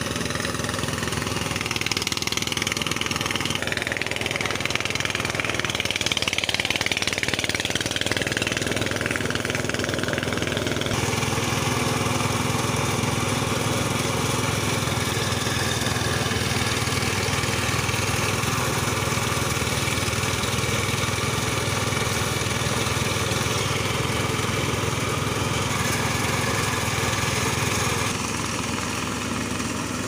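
Small engine running steadily, belt-driving a rice thresher as sheaves are fed into its drum. A higher whine swells and fades between about four and ten seconds in.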